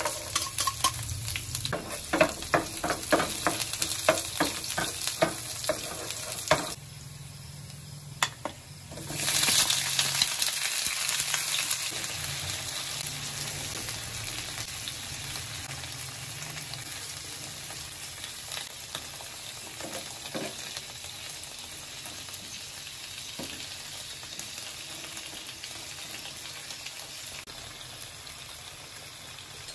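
Shallots and garlic sizzling in hot oil in a nonstick frying pan, with repeated clicks of metal tongs stirring them. About nine seconds in, a sudden loud burst of sizzling as whole shrimp go into the oil, which settles into a steady sizzle that slowly grows quieter.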